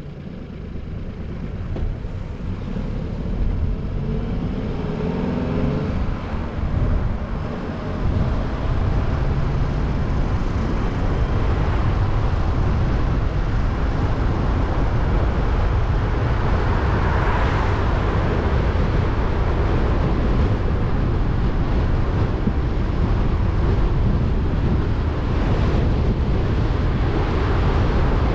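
A car pulling away and driving: the engine rises in pitch as it accelerates over the first several seconds, then settles into steady road and wind noise, heavy in the low end.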